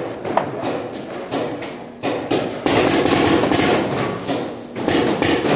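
Paintball fire: a rapid, dense run of sharp pops and smacks from markers shooting and paintballs hitting the barriers, easing briefly about two seconds in before picking up again.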